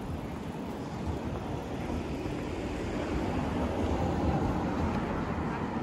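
Street traffic noise along a city boulevard: a steady hum of vehicles that swells past the middle as one goes by, then eases off.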